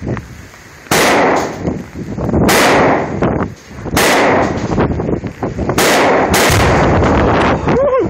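Five gunshots, one to two seconds apart, each followed by a long echoing tail, fired at a Tannerite exploding target.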